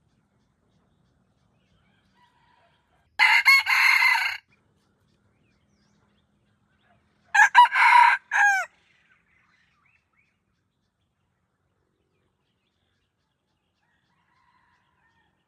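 Rooster crowing twice, each crow lasting about a second, a few seconds apart.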